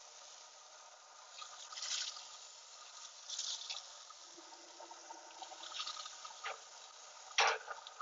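Chicken wings sizzling on a hot pellet grill's grates as metal tongs turn them, with short scrapes and clicks of the tongs on the grate. A sharp metal click near the end is the loudest sound.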